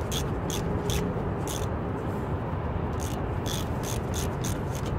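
Ratchet wrench clicking in short, irregular bursts as the front brake caliper bolts are tightened, over a steady low background rumble.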